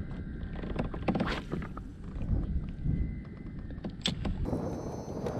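Low rumbling wind and water noise around a fishing kayak, with a few sharp clicks and knocks from gear being handled on board.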